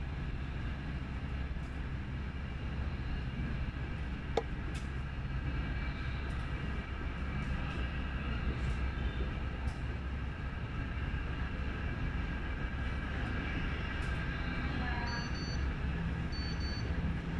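A steady mechanical rumble with a held high whine. A single sharp click comes about four seconds in, and two short high beeps come near the end.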